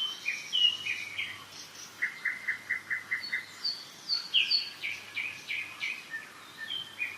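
Several songbirds singing in spring woodland, overlapping short chirps and whistled phrases, with a quick run of about seven repeated notes about two seconds in.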